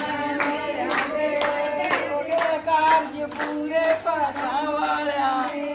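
Punjabi folk singing by high voices, with hand claps keeping time at about two claps a second.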